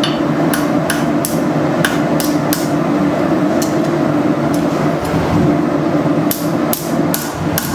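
Hand hammer striking a red-hot horseshoe held in tongs on a steel anvil, a run of irregular blows about two a second, straightening the bent shoe. Underneath is a steady low roar.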